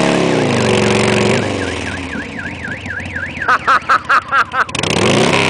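Harley-Davidson V-twin motorcycle engine revving and settling, then a car alarm set off by the exhaust noise: first a warbling tone sweeping up and down, then a rapid series of loud beeps. The engine revs again near the end.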